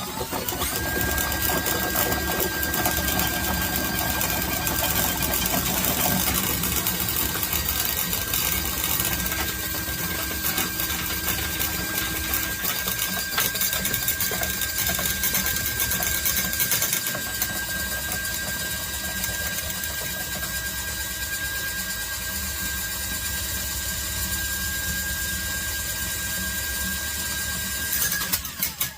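Ryobi 18-volt cordless drain auger running continuously, its motor spinning the cable down a sink drain with a steady whine; it stops about a second before the end.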